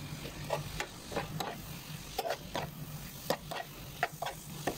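Spatula stirring and scraping shrimp with fresh dill and coriander leaves around an oiled frying pan: irregular scrapes and clacks every half second or so over a light sizzle of frying.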